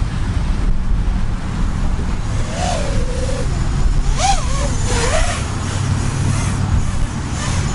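FPV racing quadcopter in flight, heard from its onboard camera: a steady low rush of prop wash and wind, with a motor whine that rises and falls in pitch as the throttle changes.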